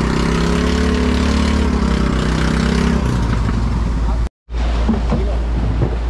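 Boat engine running steadily with a constant low rumble, then a sudden break about four seconds in, after which wind and sea noise take over.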